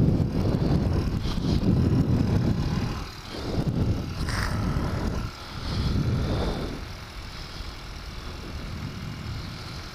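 2003 Suzuki DR-Z125 pit bike's single-cylinder four-stroke engine running while riding along, with wind buffeting the helmet microphone. The sound swells and drops several times and is quieter over the last few seconds.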